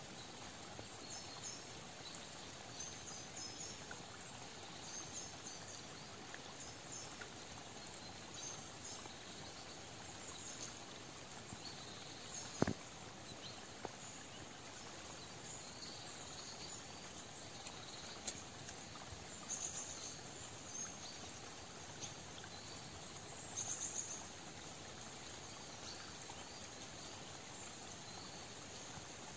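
Faint autumn woodland ambience: a steady soft hiss with scattered short high chirps. There is a single sharp click about halfway through, and brief louder bursts of chirping about two-thirds of the way through and again near the end.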